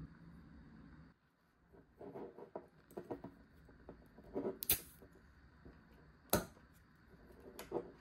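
Small handling noises at a glass drink bottle of Oronamin C: soft rustles and knocks, with three sharp clicks, the loudest about halfway through.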